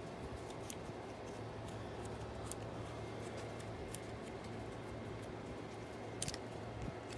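Faint small clicks and taps of hand work on motorcycle parts, with one sharper click about six seconds in, over a low steady hum.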